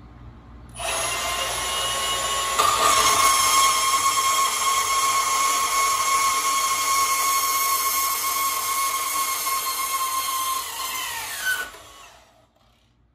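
Milwaukee M18 Fuel deep-cut cordless band saw (2729-20) starting up about a second in and cutting through a small piece of high-carbon steel at a low speed setting: a steady whine, with the blade's rasp on the metal coming in about two and a half seconds in. Near the end, as the cut finishes, the pitch falls and there is a brief odd noise that the owner has not yet explained, then the saw stops.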